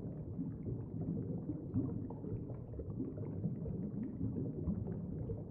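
Underwater water noise: a steady, low, muffled rumble with faint crackling.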